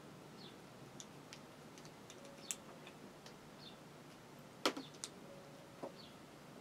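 Faint, scattered clicks and light knocks of a paintbrush and watercolour paint box being handled, the loudest knock a little before five seconds in. A few short, faint, high chirps sound behind them.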